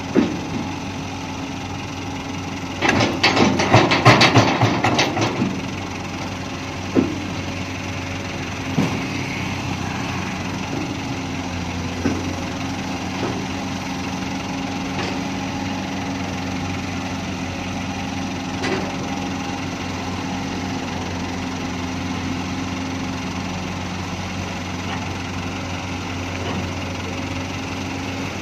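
Komatsu PC200 long-reach excavator's diesel engine running steadily. About three seconds in, a load tipped from the bucket clatters into the steel bed of a dump truck for a couple of seconds, and a few single knocks follow.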